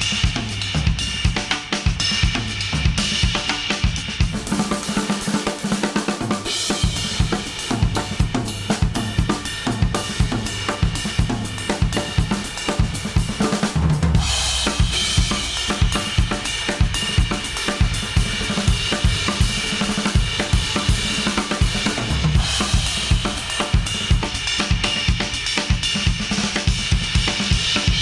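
Instrumental track with a full drum kit (snare, kick, hi-hat and cymbals) keeping a steady beat, played back through Apple AirPods and recorded in an artificial ear simulator. The low end drops out briefly about four seconds in, and the arrangement shifts about halfway through.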